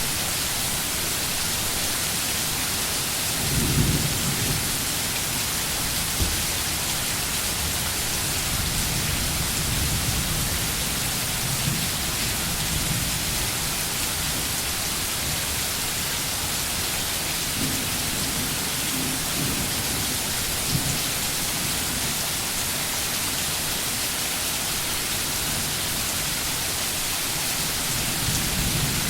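Steady, even hiss of heavy rain, with low rolls of distant thunder swelling up several times, the strongest about four seconds in.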